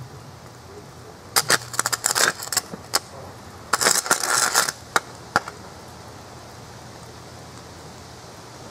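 A burning Xbox One, packed with gun caps, sparklers, steel wool and gasoline, jetting flame and letting off two bursts of rapid, sharp crackling pops, the second a little over a second after the first ends. A few single pops follow.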